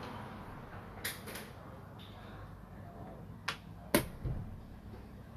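Xiangqi pieces set down on a wooden board and a chess clock's button pressed: about five sharp clicks and knocks, the loudest about four seconds in.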